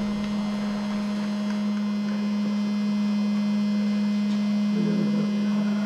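Anti-fog fan built into airsoft goggles buzzing with a steady low hum, right at the microphone.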